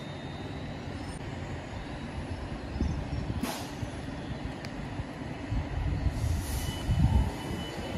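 Avanti West Coast Class 390 Pendolino electric train at a platform, just drawn to a stand, with a low steady rumble. A short hiss of air comes about three and a half seconds in and another near the end, typical of the air brakes.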